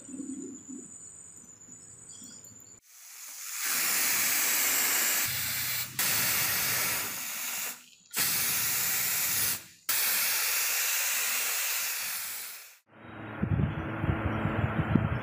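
Aerosol spray can hissing in four long bursts, laying a clear gloss coat on a bundled broom-stick wooden handle. Lower handling and rubbing noises near the end.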